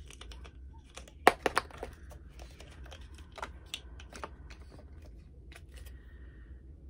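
Small plastic shampoo bottle being handled and opened: a run of light clicks and taps, the sharpest a little over a second in.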